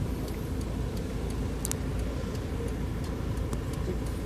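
Steady low rumble of motor vehicle noise, with a faint click about a second and a half in.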